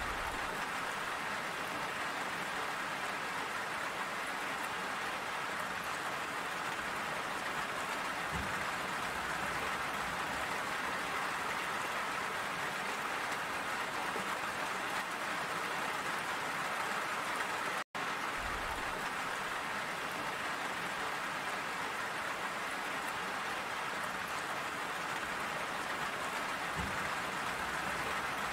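Steady rain falling, an even hiss of raindrops on a surface. It cuts out for an instant about two-thirds of the way through, then carries on unchanged.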